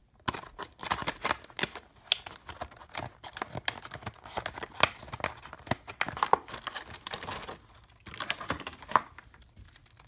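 Stiff clear plastic blister packaging being cut open with scissors and pulled apart: a dense run of crackling snips and crinkles, with a short lull a little after halfway.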